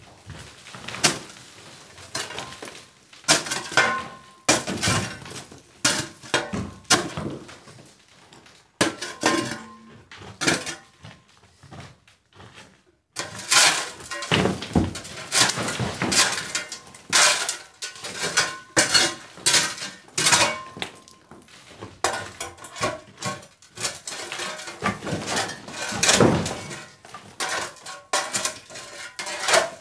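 A steel shovel scraping and clattering into stone and plaster rubble, then, after a short pause about halfway through, a long-handled tool knocking again and again against an old stone wall, with broken render and stone clattering down onto the rubble.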